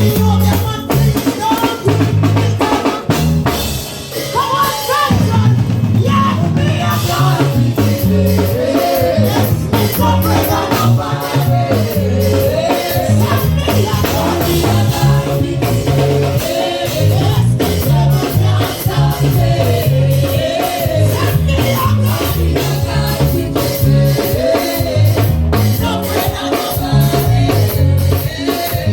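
Live worship band music: drum kit and bass keeping a steady beat, with a singer's voice over the top.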